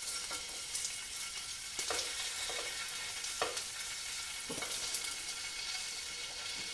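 King scallops sizzling in hot olive oil in a frying pan, with a few light knocks of a slotted spatula and tongs against the pan as the scallops are turned over.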